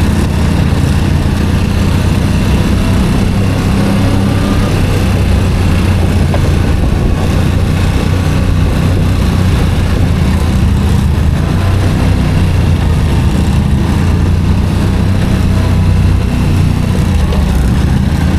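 ATV engine running steadily under way, a constant low drone with no big changes in revs.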